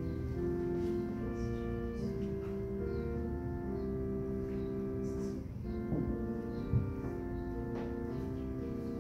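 Slow instrumental music of held chords on a keyboard instrument, the chords changing every second or two. A single short knock is heard about seven seconds in.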